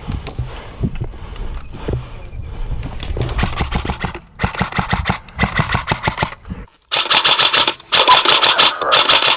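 Airsoft guns firing on full auto in bursts: three long, loud bursts in the last few seconds, after lighter rapid clicking and shorter bursts in the first half.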